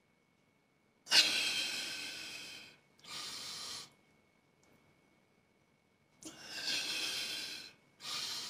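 A man breathing hard with the effort of dumbbell curls: two long, forceful breaths, each about a second and a half, each quickly followed by a shorter breath.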